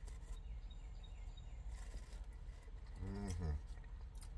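Eating with a plastic fork from a styrofoam container: faint clicks and scrapes of the fork and chewing, over a steady low rumble. About three seconds in, a short hummed "mm" from the eater's voice is the loudest sound.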